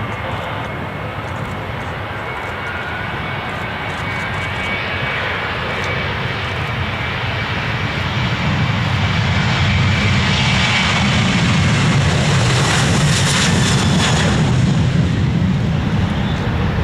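Airliner engines running as an aircraft moves past, the sound swelling steadily from about halfway through and loudest near the end.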